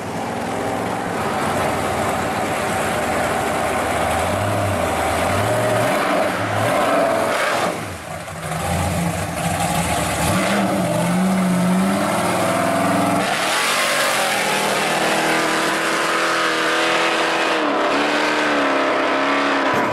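Supercharged V8 muscle car accelerating hard, its engine revving up in pitch several times as it runs through the gears. It then settles into a steadier run for the last several seconds.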